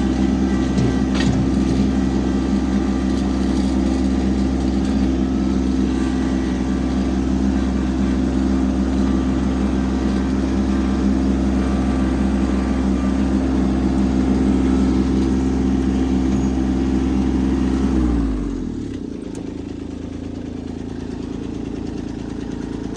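Tractor engine running steadily at high revs, then throttled down about 18 seconds in, its pitch falling to a quieter idle.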